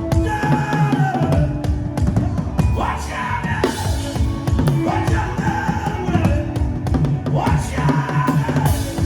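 Drum kit played in a fast, busy rhythm, with bass drum and snare hits, over music that has held and sliding pitched tones.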